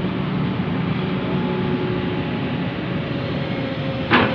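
Excavator's diesel engine running steadily, with one sharp metallic clank about four seconds in.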